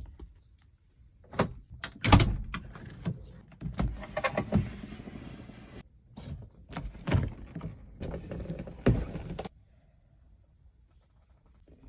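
Classic Ford Mustang engine revved in a string of short, irregular throttle blips, each rising and dropping away quickly, with short lulls between them.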